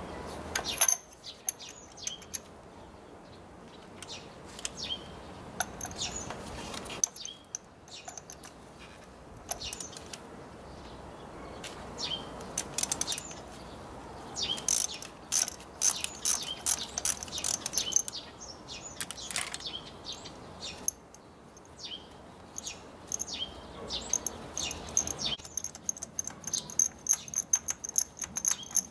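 Ratchet wrench with a spark-plug socket clicking in bursts as it turns the spark plugs, with the knocks of tools and plug caps being handled.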